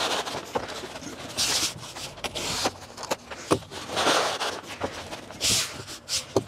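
Sheet of breathable membrane rustling and scraping as it is pulled and smoothed across a tabletop, in several short bursts, with scattered light clicks and knocks.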